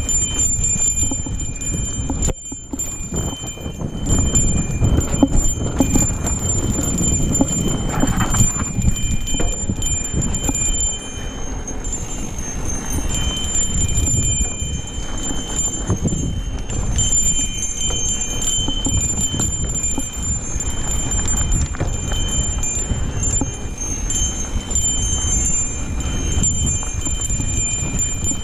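Mountain bike riding over a dirt singletrack: tyres rumbling and the bike rattling over the rough ground, with a high steady ringing tone that comes and goes.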